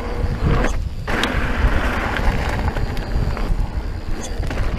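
Mountain bike rolling along at speed: tyre hiss and light clicks and rattles from the bike, under a low rumble of wind buffeting the microphone.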